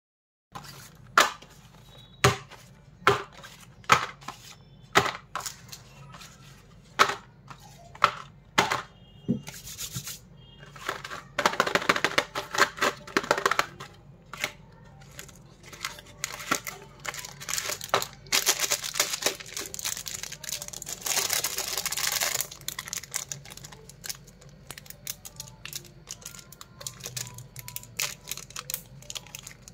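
Cardboard candy boxes and their plastic wrappers being handled: about nine sharp taps, roughly one a second, as boxes are set down on a wooden tabletop. Then longer stretches of tearing and crinkling packaging with many small clicks, ending with a candy wrapper being torn open.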